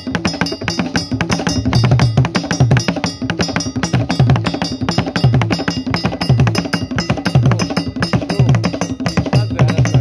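Ghanaian traditional drum ensemble playing: several barrel drums struck with bare hands and sticks in a dense, fast interlocking rhythm, with deep low drum notes recurring about once a second.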